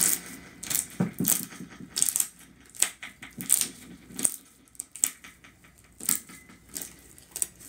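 Thick, glossy slime squeezed, kneaded and pulled by hand close to a microphone, giving sharp, irregular wet pops and clicks, one or two a second.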